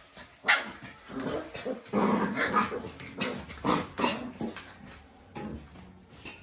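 Bhotia and Labrador puppies play-fighting, with a string of short puppy barks and yips, the first sharp one about half a second in.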